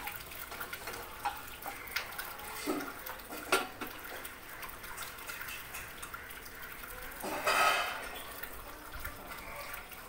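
Steady hiss of a lit gas-stove burner under an empty nonstick kadai, with a few light knocks of a wooden spatula against the pan in the first few seconds. About seven and a half seconds in, a louder rushing noise lasts about a second.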